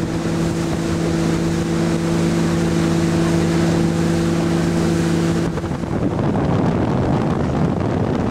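Motorboat engine running at a steady pitch under way, with water and wind rushing past; about five and a half seconds in the steady engine note gives way to a rougher rushing sound.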